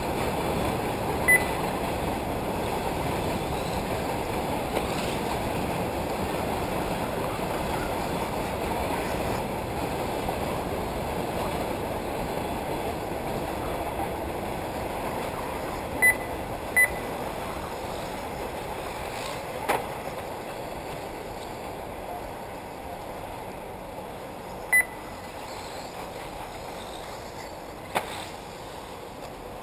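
Short high electronic beeps from the race's transponder lap-timing system, four of them, two in quick succession about halfway through. Beneath them is a steady rushing noise that slowly fades, with a couple of sharp clicks near the end.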